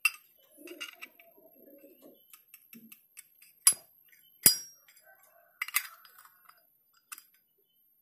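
Zippo lighter's metal insert and case being handled, giving a few sharp metallic clicks and clinks spread through, the loudest about four and a half seconds in.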